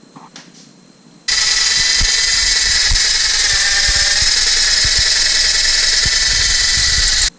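Cordless drill with a 1/4-inch bit drilling out a stripped transmission pan bolt hole, running steadily under load. It starts suddenly about a second in and cuts off abruptly at the end.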